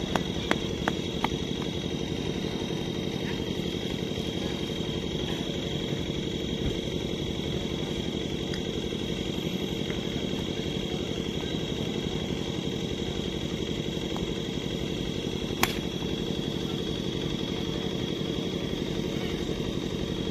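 A steady engine hum with a thin high whine runs without change. A few light knocks come in the first second, and a single sharp crack comes about three-quarters of the way through.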